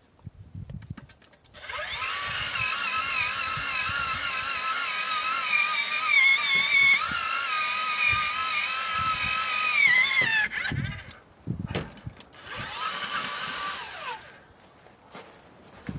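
Small power drill boring into soil to loosen it for a fence post hole. Its motor whines for about nine seconds, the pitch wavering as the bit bites, then winds down. A second, shorter run of a couple of seconds follows.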